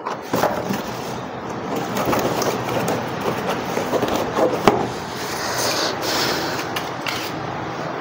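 Battery-powered toy passenger train running on its track: a steady rattling clatter of motor and wheels, with a few sharper clicks.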